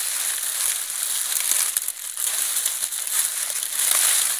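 Dry sugarcane leaves crunching and crackling as a wire-mesh rat trap is pushed in among them.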